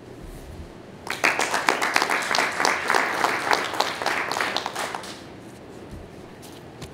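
A small group applauding, many separate hand claps. It starts about a second in and dies away after about four seconds.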